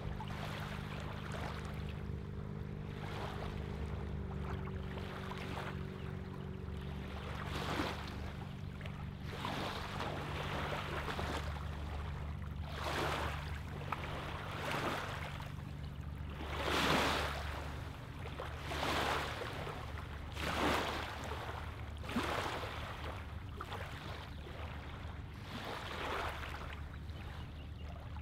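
Small ripples of lake water lapping onto a pebbly, sandy shoreline, washing in irregularly every second or two, over a steady low hum.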